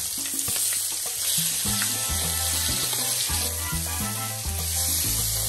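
Bacon sizzling in a hot grill pan as the strips are turned over with a fork, with background music and its bass line coming in about a second and a half in.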